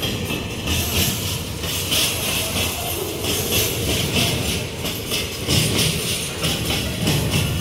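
Empty GDT ore gondola wagons of a long freight train rolling past close by: steel wheels clattering on the rails, with a loose metallic rattling and a high metallic ringing that comes and goes.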